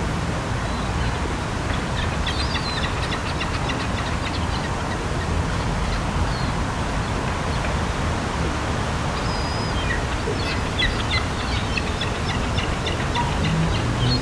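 Gulls calling in two bursts of rapid repeated calls, about two seconds in and again around ten seconds in, with a few single calls between, over a steady low rumble of city background noise.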